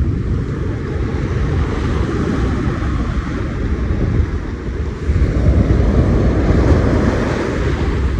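Ocean waves washing in, with wind rumbling on the microphone; a bigger wave surges in about five seconds in.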